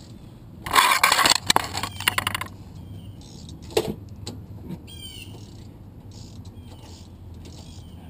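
A loud burst of rustling and metallic clattering with rapid clicks for about two seconds, then a single sharp click; after that, birds chirping.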